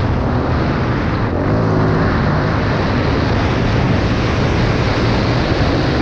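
Suzuki DRZ400E single-cylinder four-stroke engine running steadily under way, buried in heavy wind buffeting on the helmet camera's microphone.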